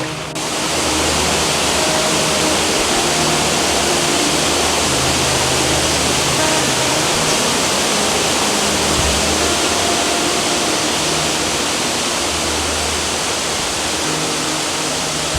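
Waterfall rushing: a loud, steady roar of falling water that sets in abruptly just as the sound begins.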